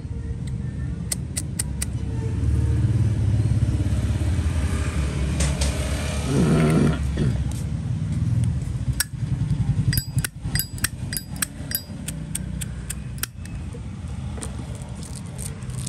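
Sharp metallic clicks and taps from a Zippo lighter being handled, a few about a second in and a quick run of them in the second half. Under them is a steady rumble of road traffic with motorbikes, swelling near the middle.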